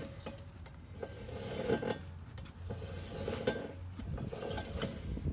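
Worn wheel bearing of a 2008 Nissan Armada grinding as the raised wheel is spun by hand, a rough mechanical grinding that swells and fades several times: the sign of a bad bearing.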